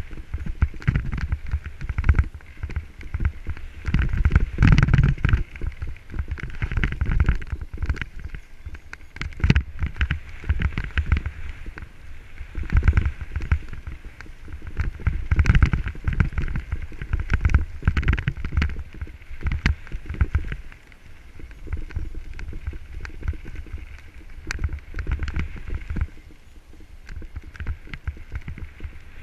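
Mountain bike rolling fast down a gravel singletrack: tyres crunching over the dirt and stones, with frequent irregular knocks and rattles from the bike over bumps, over a low wind rumble on the helmet-mounted microphone.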